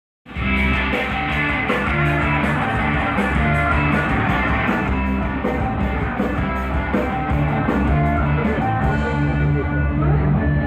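Rock band playing live: an instrumental intro with electric guitar, bass and drums, with no singing. The cymbal strokes drop out about nine seconds in while guitar and bass carry on.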